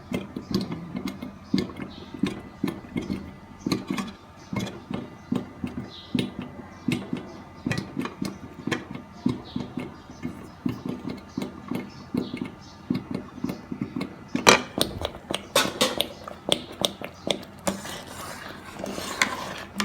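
Thick coconut-milk porridge of glutinous rice and mung beans bubbling in a covered pot, with irregular soft popping two or three times a second. A short run of sharper clicks comes about three quarters through.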